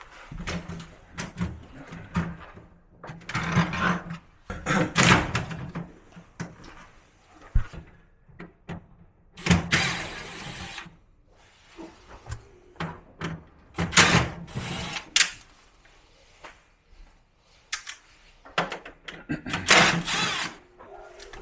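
Hands-on disassembly work on a Samsung Gallery stand air conditioner: irregular knocks, clicks and scraping bursts of plastic panels and parts being handled, with quiet gaps between them.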